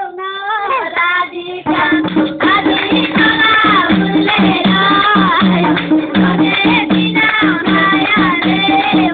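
Nepali dohori folk song: a voice sings alone at first, then about two seconds in a steady beat of accompaniment joins under the singing.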